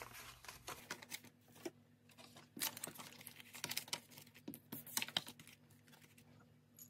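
Faint rustling and irregular light taps of paper dollar bills being handled and squared into a stack on a table.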